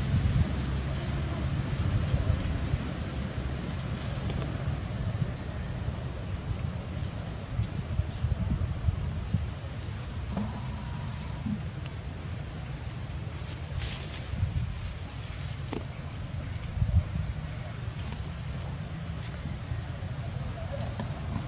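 Steady high-pitched insect drone, with a quick run of short rising chirps in the first second. A low rumbling noise runs underneath.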